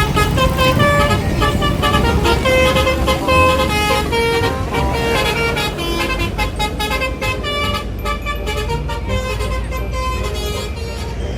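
Basuri telolet bus horn playing a quick tune of short notes stepping up and down, over the low rumble of a bus engine.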